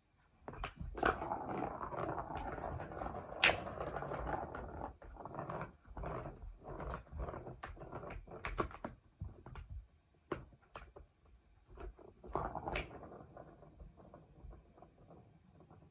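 A ball rolling and rattling around a plastic circular track toy as cats bat at it, with many irregular clicks and knocks. It is busiest in the first few seconds and thins to scattered taps toward the end.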